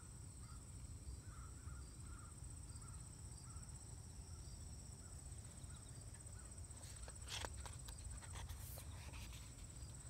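Steady high-pitched trill of crickets in the grass. About seven seconds in, a soft rustle of a book page being turned.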